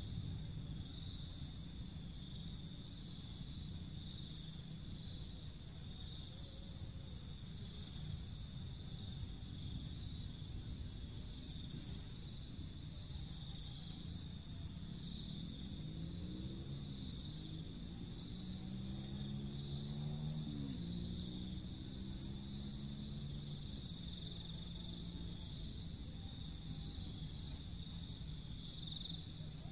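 Insects droning steadily in a high, unbroken pitch over a low background rumble. From about halfway through, a low pitched hum swells, bends and fades over several seconds.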